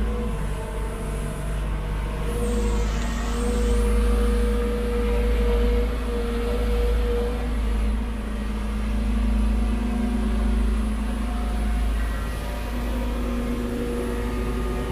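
Heavy diesel engines of an excavator and a dump truck running steadily, a low drone with a steady whine over it.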